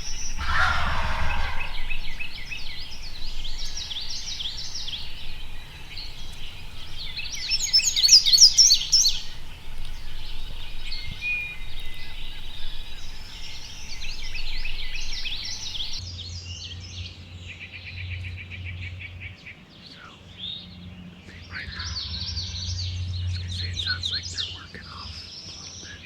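Woodland songbird chorus, many overlapping high chirps and trills, with a wild turkey gobble right at the start. A low rumble joins in the second half.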